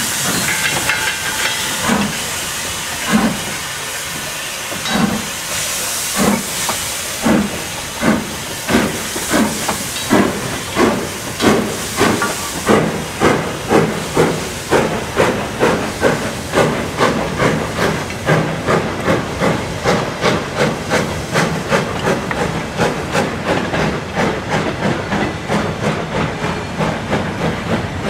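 Steam locomotive pulling away with a goods train: a loud hiss of steam at first, then exhaust chuffs that start slowly, about one a second, and quicken steadily to two or three a second.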